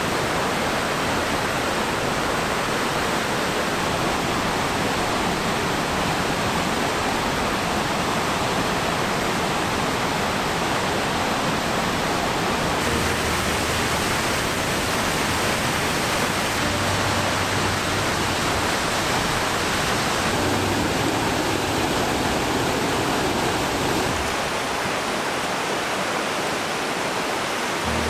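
Steady, loud rush of a large waterfall on the McKenzie River, with its tone shifting slightly a few times.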